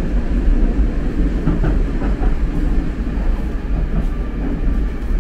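Moscow Metro train running, a steady loud low rumble with rail noise.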